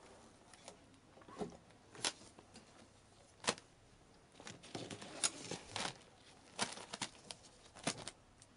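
Plastic vacuum-compression bags crinkling and rustling in a packed suitcase as a cat nudges into them. The sound comes as irregular sharp crackles and clicks, the strongest about two, three and a half, five, six and a half and eight seconds in.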